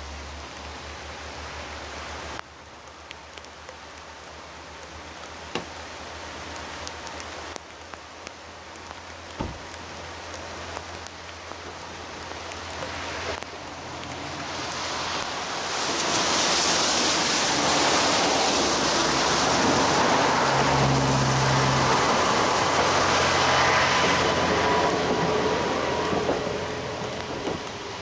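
KiHa 40 diesel railcar running past: the engine and wheel noise builds over several seconds, stays loud for about ten seconds, then fades near the end.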